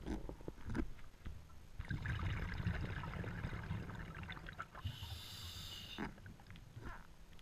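Scuba diver's breathing through a regulator underwater: a few light clicks, then a long exhale of rumbling bubbles for about three seconds, followed by a short hissing inhale about five seconds in.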